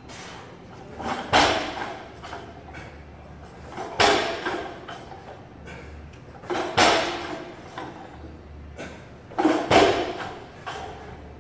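Barbell loaded with bumper plates, worked through repeated power clean and jerk reps: four loud thumps about two and a half seconds apart, each with a reverberant tail.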